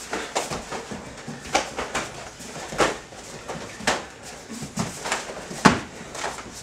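Full-contact karate sparring: punches and kicks landing on bodies and gloved guards as sharp, irregular slaps and thuds, the hardest about two-thirds of the way through.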